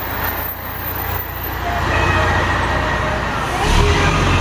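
Fire engine's diesel engine running as the truck drives past and pulls away, a deep rumble that swells near the end.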